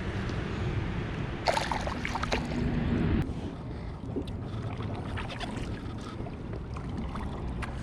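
Water and wind noise around a kayak, with a louder stretch of clicks and knocks from about one and a half to three seconds in.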